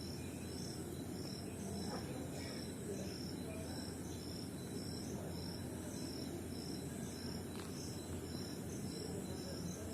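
Faint, high-pitched chirping repeating evenly at about two chirps a second, like a cricket, over a steady low background hum.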